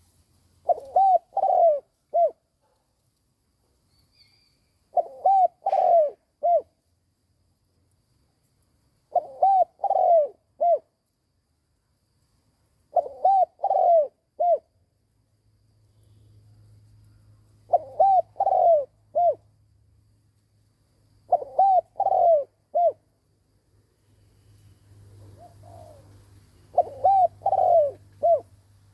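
Spotted dove cooing its song: a short phrase of four or five coos, repeated seven times about every four seconds. A fainter coo phrase comes shortly before the last one, over a low hum in the second half.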